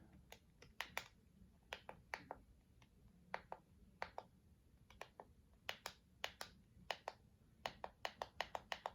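Faint clicking of the buttons on an Eton Zoneguard weather radio, pressed one at a time while stepping through its menu, coming a little quicker near the end.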